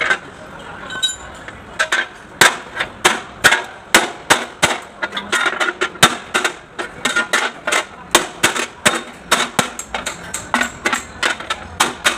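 Hammer blows on metal, struck over and over at an uneven pace of a few a second.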